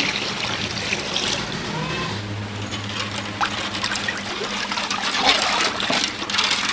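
Liquid trickling and pouring steadily, with light clicks and a low steady hum for a couple of seconds in the middle.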